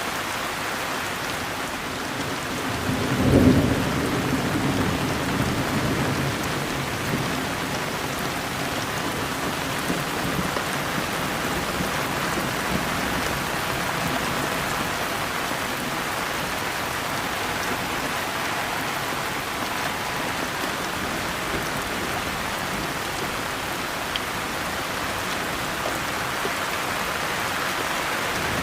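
Steady rain falling, with a roll of thunder about three seconds in that rumbles on for a few seconds before fading back under the rain.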